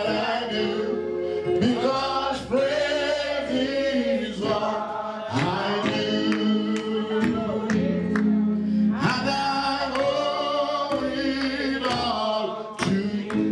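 Gospel praise music with voices singing over instruments, with sharp percussive strokes scattered through.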